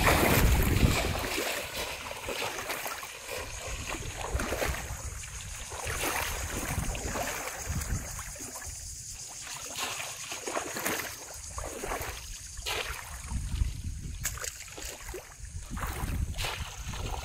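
Water splashing as a person wades fast through a shallow pond, loudest in the first second, then quieter, uneven sloshing and swishing of water around the legs as the wading slows.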